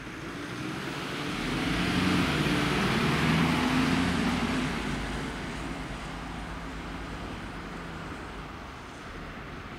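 Ambulance van driving past close by, running on blue lights without its siren: engine and tyre noise swell to their loudest about two to four seconds in, then fade as it moves away.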